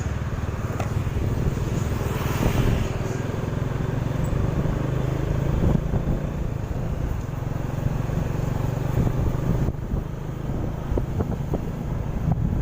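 Vehicle engine running steadily, with road traffic noise.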